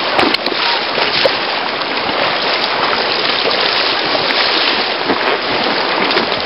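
River rapids rushing and splashing around an inflatable kayak: a loud, steady hiss of whitewater, with a few sharp clicks near the start.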